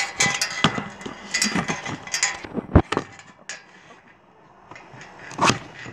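Camera handling noise as the camera is moved and repositioned: a run of clicks, rubs and knocks, with a sharp low thump just under three seconds in and another knock near the end.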